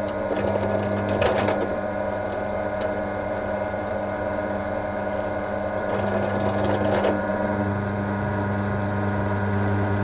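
A powered drilling machine runs steadily as a 4.2 mm tapping drill cuts right through a metal block. The motor gives a constant hum, with scattered faint ticks from the cutting.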